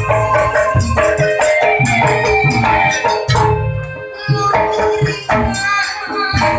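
Jaranan campursari music: drums and rattling percussion keeping a steady beat under electronic keyboard tones. The music eases off briefly about four seconds in.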